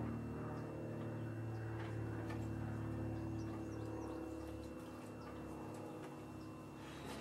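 Potter's wheel running with a steady, many-toned hum while a leather-hard bowl is trimmed, with a few light clicks of the tool. Faint bird chirps sound in the background.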